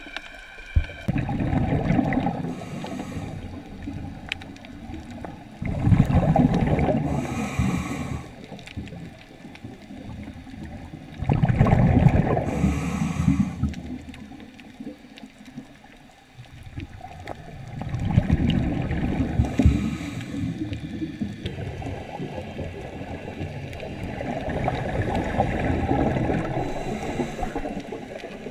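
Scuba regulator breathing heard underwater: the diver's exhaled air bubbles out in five loud bursts, roughly every five to six seconds, with quieter stretches between.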